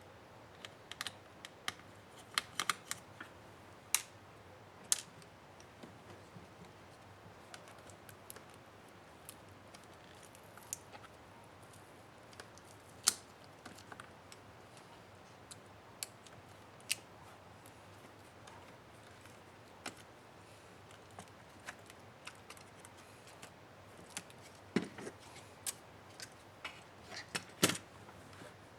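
Irregular sharp clicks and taps from tools and laptop parts being handled during disassembly, a sharp one about halfway through and a denser cluster near the end.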